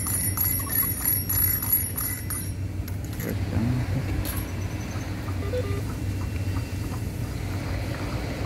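A quick, regular run of light metallic clicks for the first two seconds or so as the pulley installer tool is turned by hand in the pulley hub, stopping once it is let go; a steady low rumble runs underneath.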